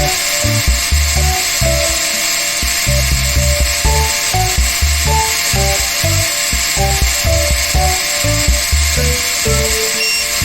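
Background music: short melody notes over a pulsing bass line.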